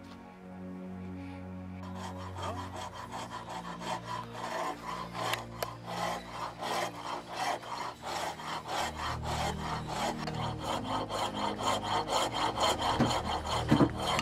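Hand tool working hardwood in quick, even strokes, about two to three a second, starting about two seconds in. It is shaping or fitting new wooden cogs into a windmill's gear wheel to replace broken ones.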